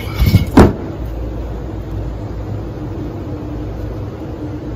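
A brief loud burst of handling noise about half a second in as a large forged alloy wheel is heaved up out of its cardboard box, with a grunt of effort. After that only a steady low background hum.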